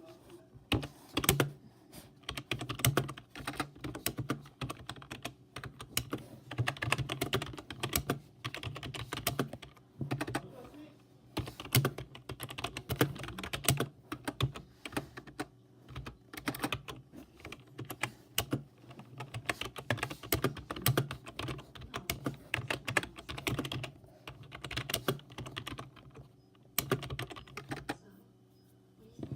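Typing on a computer keyboard: rapid runs of keystrokes with short pauses between them, over a steady low hum. The typing eases off for a moment near the end.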